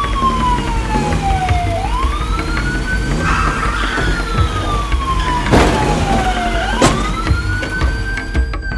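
Wailing siren, a quick rise in pitch then a long slow fall, repeating about every five seconds, over background music. Two sharp knocks in the second half.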